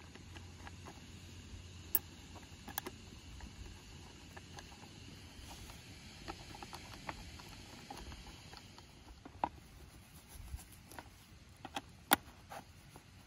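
Scattered small clicks, taps and scratches of metal blades, screws and nuts being handled and fitted by hand onto an AL-KO Robolinho robotic mower's plastic blade plate, with the sharpest click near the end.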